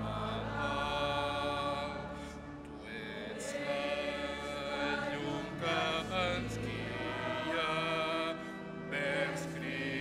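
Choir singing with organ accompaniment: sung lines over steady held bass notes.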